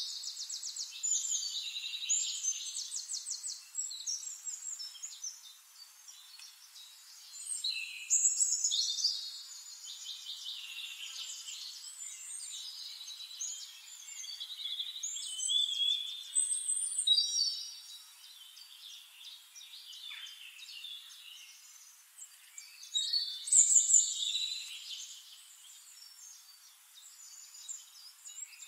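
Small songbirds chirping and trilling, high-pitched, with louder bursts of rapid trills about every seven or eight seconds and quieter chirping in between.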